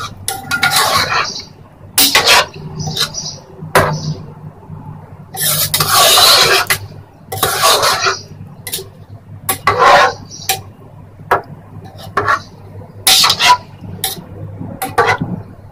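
Metal spoon stirring boiled urad dal in a metal pot, scraping and clinking against the pot's sides and bottom in irregular strokes every second or two, with one longer scrape about midway.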